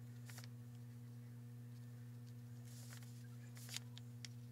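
Steady low hum with a few faint, light taps and clicks from a paintbrush working over a small model.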